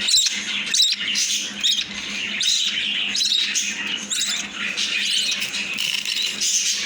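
Baby budgie (parakeet) chick giving raspy, squawking begging calls over and over, about every three-quarters of a second.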